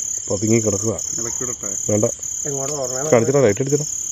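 A steady, high-pitched chorus of crickets, with men's voices talking over it in short phrases.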